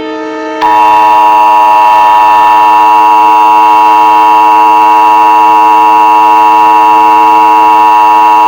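Emergency Alert System attention signal: the harsh two-tone alarm of 853 and 960 Hz sounded together, starting about half a second in and held steady, over a low steady drone. It announces that an emergency voice message is about to follow.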